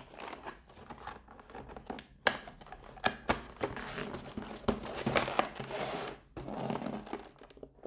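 Cardboard game box being forced shut against stiff resistance: cardboard scraping and rubbing, with a few sharp knocks around two to three seconds in. The box side is dented, which makes the lid or contents bind.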